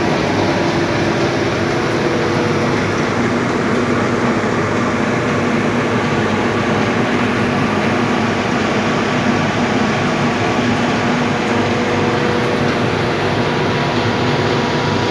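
Seed cleaning and processing machinery running: a loud, steady mechanical noise with a few steady hums layered over it.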